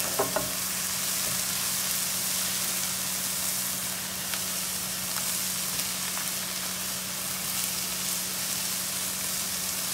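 Sliced mushrooms, onion and minced garlic sautéing in oil in a nonstick frying pan: a steady, even sizzle, with a few faint scrapes of the spatula stirring them.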